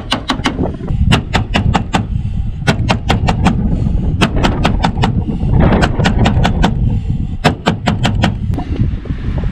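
Cold Steel SR1 tanto-point knife stabbed again and again into a car's sheet-steel bonnet: sharp metal punches in quick runs of four or five, with a short pause between runs.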